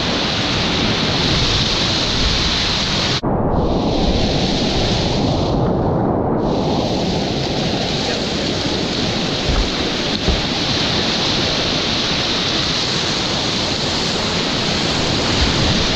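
Whitewater rapids rushing loudly around a kayak at water level: a steady hiss of churning water over a low rumble. The sound cuts out for an instant about three seconds in.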